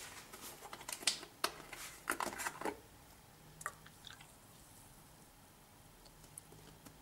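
A milk carton with a plastic screw cap being handled, giving a quick run of sharp clicks and taps over the first few seconds. Then milk is poured quietly into a mug of coffee.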